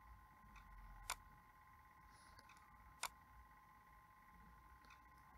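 Two sharp computer mouse clicks, about a second and about three seconds in, each with a softer click about half a second before it. Beneath them is near silence with a faint steady electrical whine.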